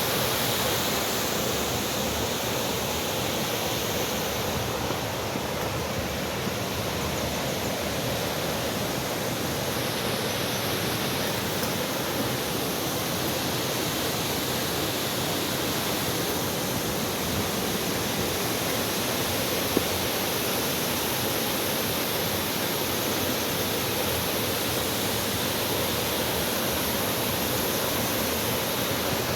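Steady rushing of flowing water, unchanging throughout, with one brief knock about twenty seconds in.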